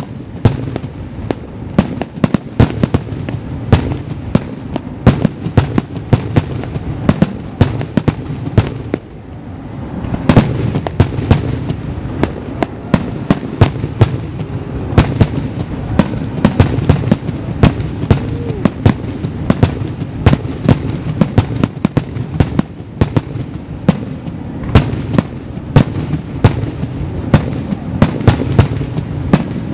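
Aerial fireworks display: shells bursting in a rapid run of sharp bangs over a continuous rumble. The bangs thin out briefly about nine seconds in, then pick up again.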